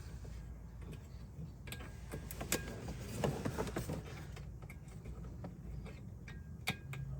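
Scattered light clicks and taps of hands working a throttle cable into a plastic retaining clip: a few separate sharp ticks over a faint steady background.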